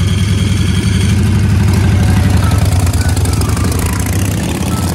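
Harley-Davidson V-twin motorcycle engine running loud and close, a rapid low pulsing that eases off a little near the end. A faint whistled music track plays underneath.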